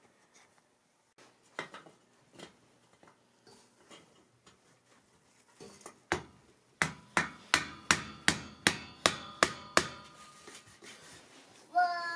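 A mallet driving a turned wooden cap onto the end of a metal bunk-bed post: a few faint taps, then about ten sharp strokes, roughly three a second, each with a brief ring.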